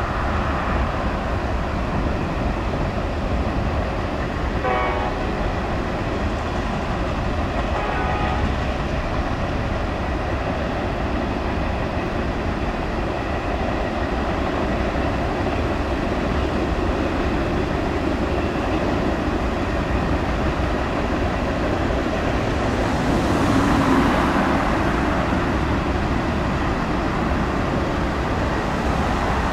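Freight train of covered hopper cars rolling steadily past: a continuous rumble of steel wheels on the rails. The sound swells briefly about 24 seconds in.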